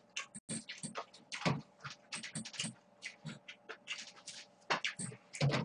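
Close-miked eating sounds of cold noodles: irregular wet clicks and smacks of chewing with fuller bursts about a second and a half in and again near the end.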